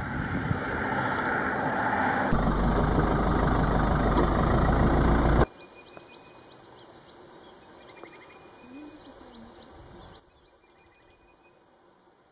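A vehicle engine runs loudly with a deep rumble, building slightly, and cuts off abruptly about five and a half seconds in. After that only faint bird and insect calls remain.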